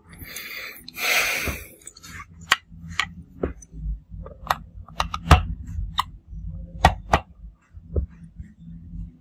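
Handling sounds while a Redmi Note 7 Pro is taken apart: a rustling scrape about a second in, then a string of sharp clicks and taps as the opened phone and a small screwdriver knock against its frame and screws.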